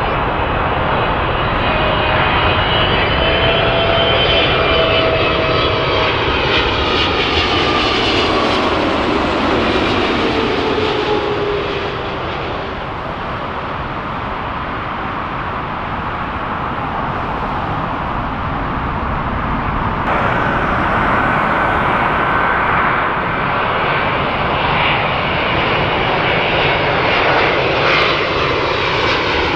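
Wide-body jet airliner's engines on approach: a loud roar with whistling tones that slide down in pitch as it passes, easing off about twelve seconds in. The jet noise swells again suddenly from about twenty seconds in.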